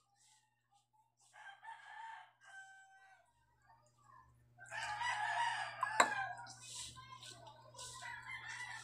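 A rooster crowing, a shorter call about a second and a half in and a longer, louder crow from about four and a half seconds in. A sharp knock sounds about six seconds in.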